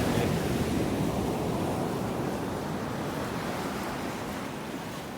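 Ocean surf washing in, loudest at the start and gradually fading as the wave recedes.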